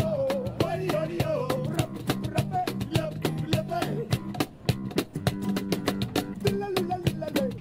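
Street band playing live: a man singing over strummed acoustic guitar and electric guitar, driven by a fast, steady percussive beat.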